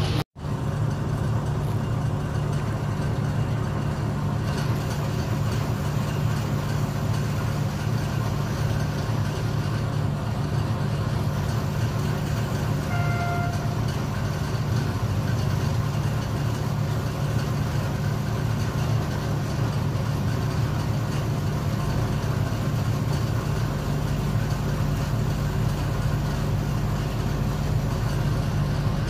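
Engine idling with a steady, deep hum that does not change. A short faint tone sounds about 13 seconds in.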